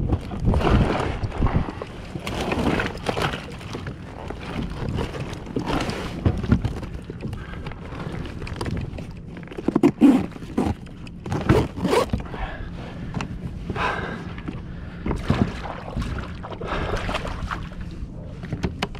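Irregular knocks, scrapes and rustling as a freshly caught yellowfin tuna is handled and stowed in an insulated fish bag on a plastic fishing kayak, with a louder clatter about ten seconds in.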